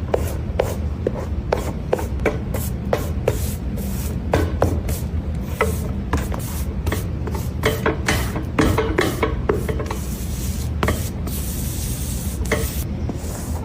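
Irregular rubbing and scraping with short clicks, a few each second, over a steady low hum.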